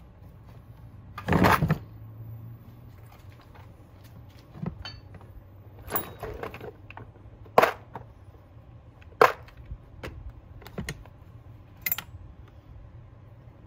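Hard plastic and metal clattering and clicking as a recoil starter cover is handled and fitted onto a chainsaw's plastic housing: a rattling clatter about a second in, then about five sharp separate clicks and knocks.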